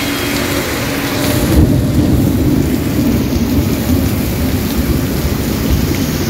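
Heavy rain hissing steadily. About one and a half seconds in, a long low rumble of thunder rolls in over it.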